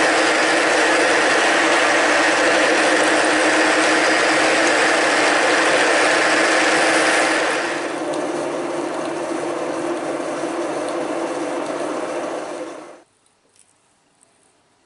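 Milling machine running with a drill chuck in its spindle, drilling a small hole in a steel part: a steady mechanical run with a fixed gear whine. It gets quieter about eight seconds in and stops about thirteen seconds in.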